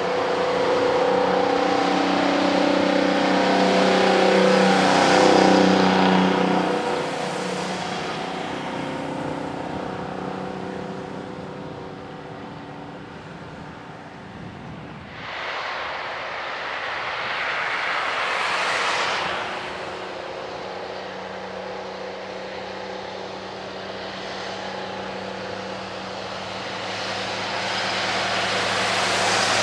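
Old trucks' engines labouring up a long highway grade: one truck runs loud and close for the first several seconds, then fades as it climbs away. About halfway a vehicle rushes by with tyre and wind noise, and near the end another old truck's engine grows louder as it comes up the hill.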